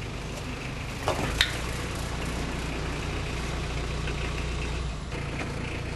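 VW T3 Syncro's engine running steadily in low range. Just after a second in comes a short scrape and a sharp knock, and the engine's low rumble grows stronger before easing off near the end.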